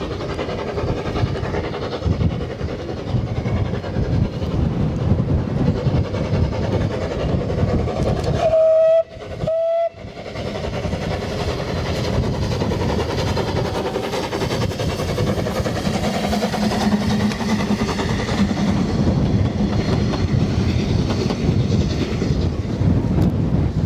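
Narrow-gauge steam locomotive Lyd running past hauling its coaches, its noise mixed with heavy wind on the microphone. About nine seconds in, its whistle gives two short toots.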